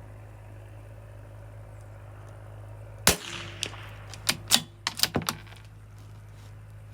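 A single shot from a CZ 457 bolt-action .22 LR rifle, a sharp crack about three seconds in, followed over the next two seconds by a quick series of metallic clicks as the bolt is worked to eject the case and chamber the next round.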